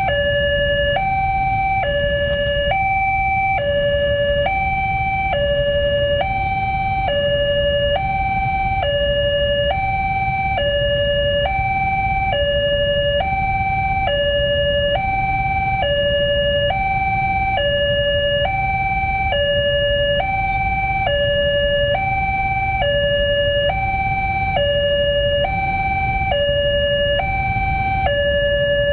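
Railway level-crossing electronic warning alarm sounding a steady two-tone high-low cycle, about one pair a second, warning of an approaching train. A low steady rumble runs underneath.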